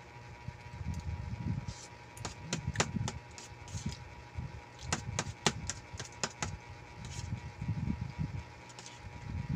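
Eating noises: a metal fork clinking and scraping against a metal tray of pancit noodles in two runs of sharp clicks, with soft chewing sounds between.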